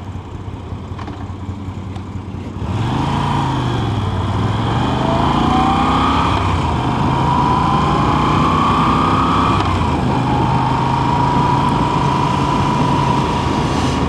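Motorcycle engine pulling away: quieter for the first few seconds, then louder as it accelerates, its pitch climbing and dropping at two gear changes before holding steady at cruising speed, over road and wind noise.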